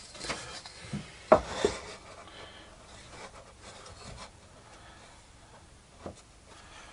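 Plywood parts of a homemade benchtop planer knocking and rubbing as they are handled and fitted together by hand: a few light knocks in the first two seconds, the loudest just over a second in, then faint scraping and one more small knock near the end.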